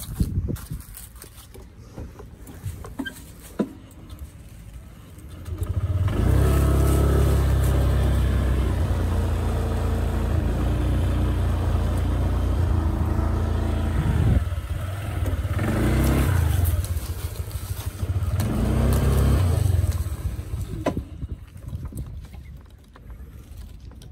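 A motor vehicle's engine running close by, starting about six seconds in and fading out about twenty seconds in, its speed dipping briefly partway through and rising again.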